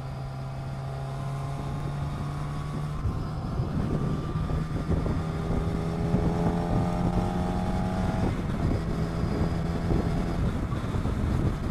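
Sportbike engine running under way on the highway, its note climbing in pitch and growing louder over the first several seconds as the bike accelerates, with wind rushing over the microphone.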